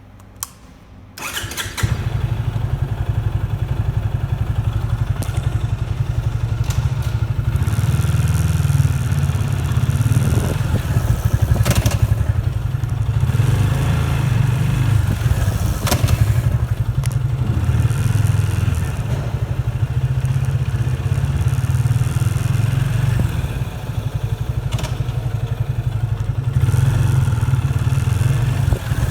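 Yamaha FZ25 motorcycle's single-cylinder engine starting about a second in, then running, with several brief harsh noises over it: the rear disc brake grinding when applied.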